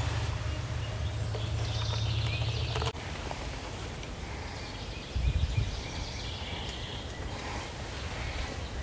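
Spring woodland ambience with small birds chirping faintly. A steady low rumble runs under the first three seconds and cuts off suddenly. A short low bump comes about five seconds in.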